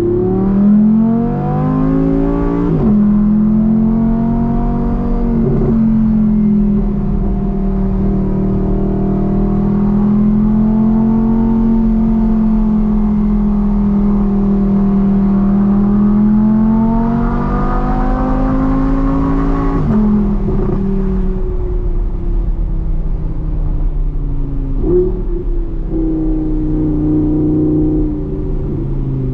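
A 2022 Audi R8 Performance's V10 engine through its Quicksilver exhaust, heard from inside the cabin. The revs climb and the pitch drops at upshifts about three seconds in and again near twenty seconds, with long stretches of steady, light-throttle cruising between.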